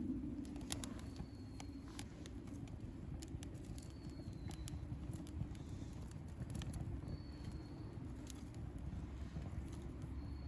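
Wood campfire burning, crackling with scattered sharp pops over a low steady rumble. A faint short high note recurs about every three seconds.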